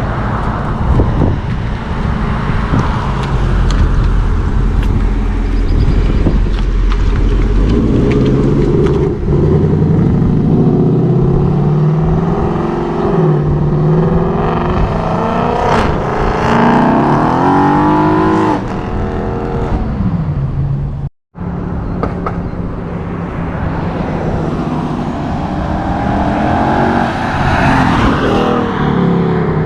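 A 2018+ Ford Mustang GT's 5.0 V8 exhaust, with an H-pipe and the stock active-exhaust mufflers and no long-tube headers, idling and being revved, its pitch rising and falling several times. A brief cut about 21 seconds in separates two clips.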